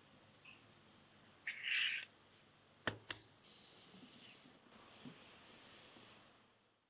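Handling noises of a flat iron and its cardboard box on a tabletop. A short scratchy rustle comes first, then two sharp knocks as the flat iron is set down, then the box sliding across the table twice before the sound fades out.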